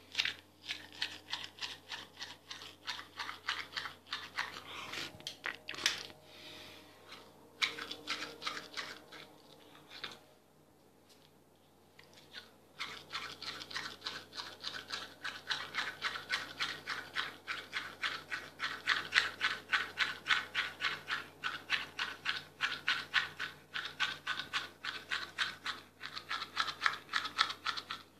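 Manual toothbrush scrubbing teeth in quick back-and-forth strokes, several a second. The bristles stop for a couple of seconds about ten seconds in, then brushing resumes steadily.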